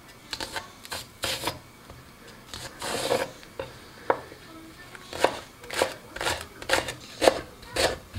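Chef's knife cutting a green onion on a wooden cutting board. It starts with a few irregular slicing strokes, then from about five seconds in settles into steady chopping at about two strikes a second.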